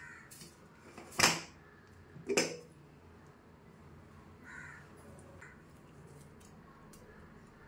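A crow cawing: two loud, harsh caws about a second apart, then two fainter ones.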